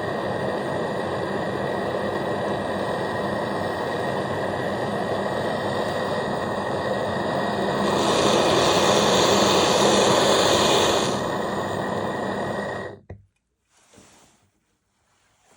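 Brazing torch flame burning with a steady hiss. It turns louder and brighter for about three seconds, then drops back and cuts off suddenly near the end, as when the torch is shut off after heating the filter drier's tube joints.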